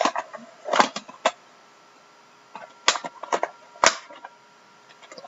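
Handling noise: a handful of separate sharp clicks and knocks, a second or so apart, as things are moved and set down on a table.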